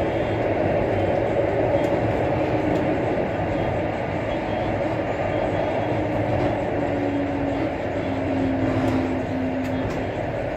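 Interior running noise of a TTC Bombardier Flexity Outlook low-floor streetcar in motion: a steady rumble of wheels on rail, with a low whine that comes in about six seconds in and steps down in pitch before fading near the end.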